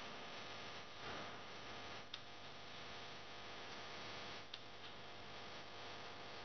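Faint steady hiss with a low hum, broken by two small sharp clicks, about two seconds in and again about four and a half seconds in.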